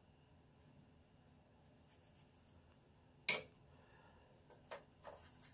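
Quiet brush sounds: faint strokes of a round watercolour brush, a single sharp click a little over three seconds in, then short scrubbing strokes as the brush works paint in a palette well.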